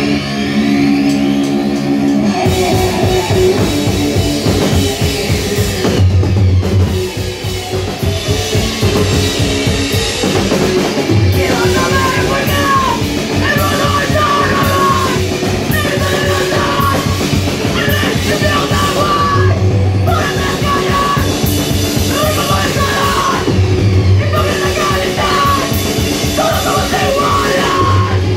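Live heavy rock band playing loudly: electric guitar, bass and drum kit. A held chord rings for about two seconds before the drums come in, and a singer's vocals join about halfway through.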